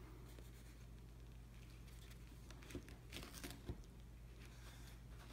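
Spyderco 6-inch plain-edge kitchen utility knife slicing through a hoagie roll: faint crackling of the crust being cut, with a few soft ticks a little past halfway.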